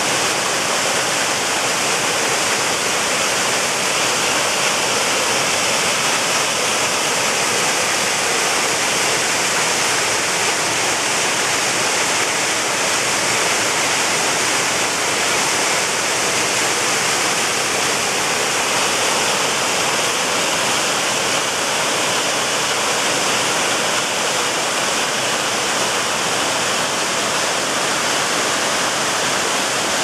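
Mountain waterfall cascading down steep rock: a steady rush of falling water.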